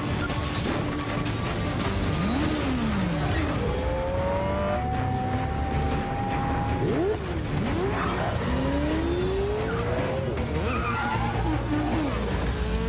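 Chase sound effects: a motorbike and a car engine revving hard, several times rising and falling in pitch, with tyre squeals, over an action film score.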